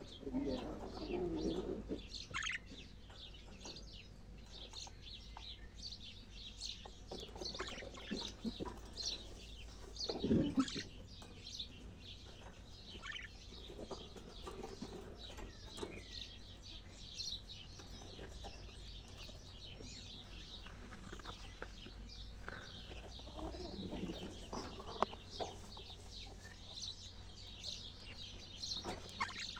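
Budgerigars chattering and warbling: a steady stream of short, high chirps, with a few lower, louder sounds mixed in, the loudest about ten seconds in.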